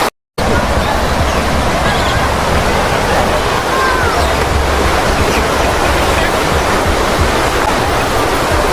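Waterfall water rushing in a steady, loud wash, cut off by a brief gap just after the start.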